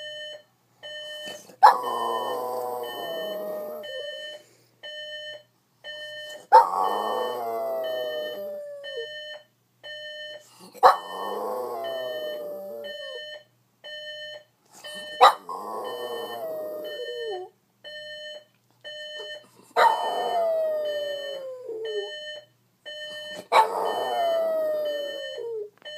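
A Boston Terrier howls six times, every four to five seconds, at an electronic alarm clock beeping about once a second. Each howl starts sharply and slides down in pitch over about two seconds. The howling is the dog's reaction to the alarm.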